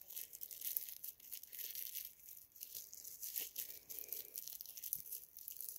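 Crinkly plastic packaging crackling and rustling in the fingers as it is handled and felt for its opening; faint, irregular small crackles.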